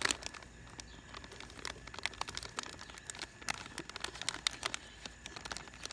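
Crinkling of the plaster-powder bag, with scattered light clicks and scrapes, as the rest of the plaster is poured in for mixing.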